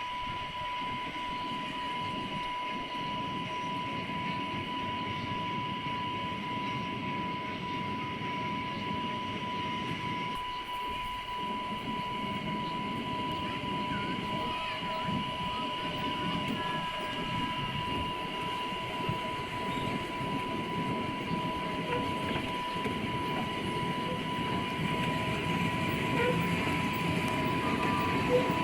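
Children's miniature ride-on park train running on its track, with a small level-crossing warning signal sounding a steady high tone over it.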